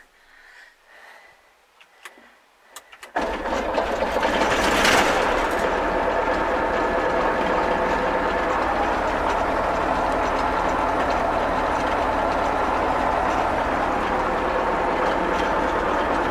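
Fortschritt E303 self-propelled mower's diesel engine starting about three seconds in, after a few faint clicks. It swells briefly around two seconds later, then settles to a steady idle.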